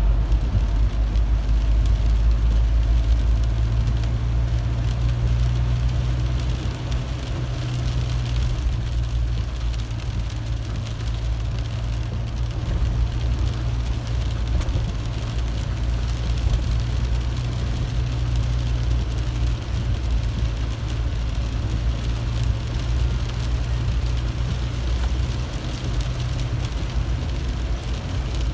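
Car cabin noise while driving on a wet highway in rain: a steady low engine and road drone with a hiss of rain and wet tyres.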